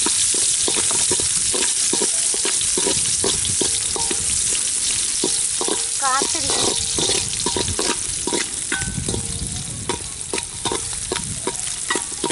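Sliced onions sizzling in hot oil in a large metal pot, with a metal ladle scraping and clicking against the pot many times as they are stirred.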